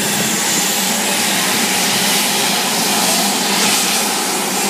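Blue Angels Boeing F/A-18 Hornet jet engines running on the ground during start-up and pre-flight checks: a loud, steady turbine rush with a faint high whine.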